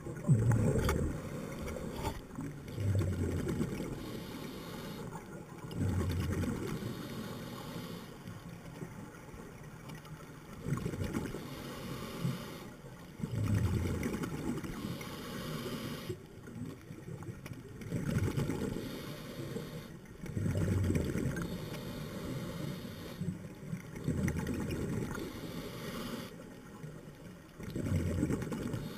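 Scuba diver breathing through a regulator underwater: a rumbling burst of exhaled bubbles about every two and a half seconds, with a fainter hiss of inhalation between some of them.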